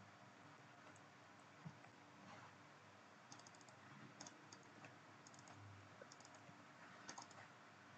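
Faint keystrokes on a computer keyboard: small clusters of quick clicks from about three seconds in, over quiet room tone.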